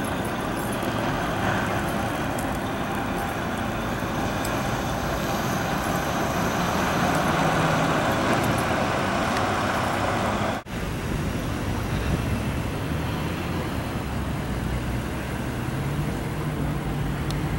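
Steady road traffic noise from passing cars, swelling as a vehicle goes by about seven to ten seconds in. The sound cuts out for an instant at about ten and a half seconds.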